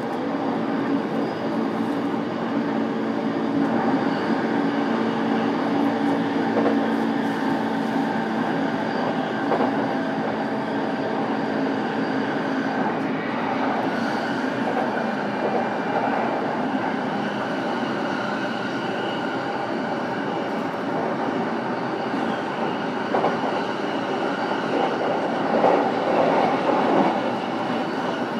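Running sound inside a JR East E233-7000 series electric train, recorded in a motor car: steady hum from the Mitsubishi IGBT VVVF traction equipment over the rumble of wheels on rail. A louder, rougher stretch of rail noise comes near the end.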